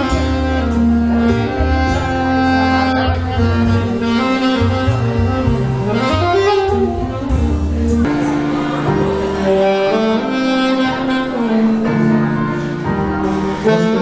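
Alto saxophone playing a slow melody of held notes live, over a recorded backing track with a steady bass line from loudspeakers.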